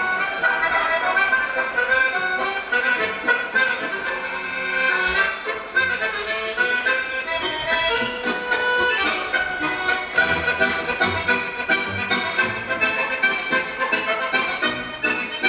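Recorded music playing for a stage dance number: a bright melody over a regular beat, with a fuller bass coming in about ten seconds in.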